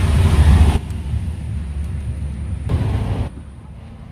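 Passing road traffic: a low rumble of vehicles that drops off sharply about a second in, swells again briefly near the end, then falls quieter.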